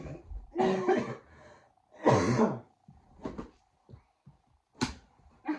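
Short, breathy, cough-like vocal sounds from a person, two louder ones in the first half, then a sharp tap about five seconds in.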